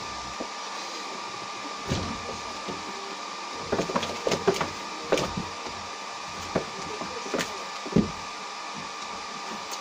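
Staffordshire Bull Terrier puppies scuffling and playing on a plastic tarp: scratchy scuffs and light knocks in uneven bursts, busiest about four to five seconds in, over a steady background hiss.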